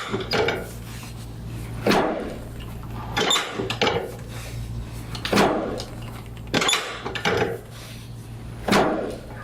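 A series of about six sharp knocks on a chiropractic treatment table during a hands-on spinal adjustment, coming every second or two, each with a short fading tail. A steady low hum runs underneath.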